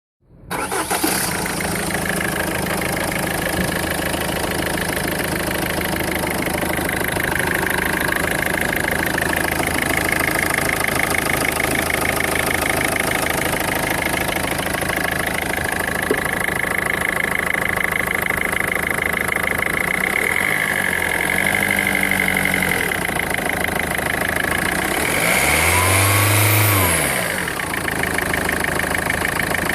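2004 Peugeot 1.4 HDi four-cylinder diesel engine idling, with a steady high-pitched whistle running over it: the strange noise the owner is asking about. The engine is revved briefly twice in the last third, the second rev the bigger.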